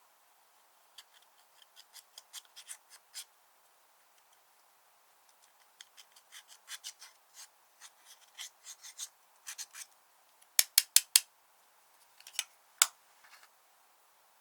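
Slime being kneaded and squeezed by hand, giving runs of sharp clicks and pops as trapped air bubbles burst. Four loud pops come in quick succession about ten and a half seconds in, and another loud one comes near the end.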